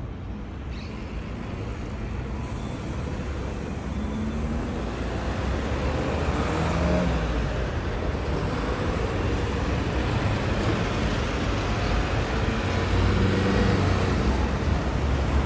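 City road traffic: cars and a lorry driving past, with engine and tyre noise that grows louder over the first few seconds and engine tones that rise and fall as vehicles come through.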